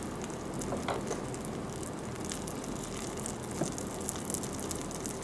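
Hot melted soft-plastic lure material crackling and sizzling in a glass measuring cup as a metal utensil stirs it, the fine crackle typical of moisture bubbles in the melt. A couple of light clicks of the utensil against the glass, over a low steady hum.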